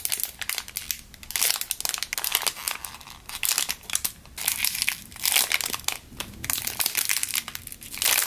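Clear plastic packaging crinkling in repeated bursts as fingers squeeze a squishy toy through its sealed bag and handle the wrapper.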